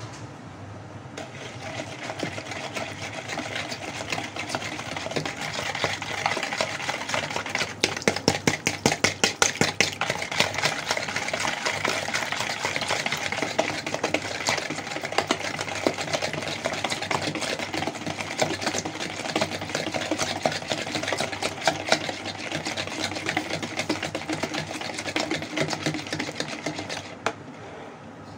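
Push-down spinner whisk beating a thin batter of oil, sugar and milk in a plastic bowl: a fast, steady whirring rattle of wire through liquid against the bowl. It has a louder rhythmic stretch about eight seconds in and stops shortly before the end.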